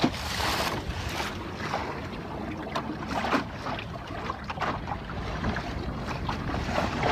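Water rushing and splashing along the wooden hull of a 12-foot Whitehall sailing skiff under way, with irregular short slaps and wind on the microphone.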